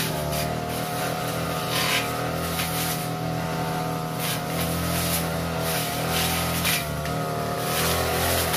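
A 42cc backpack brush cutter runs at high revs while its blade cuts thick grass and undergrowth. The engine's pitch dips and recovers as the blade bites, with repeated short swishes of cutting.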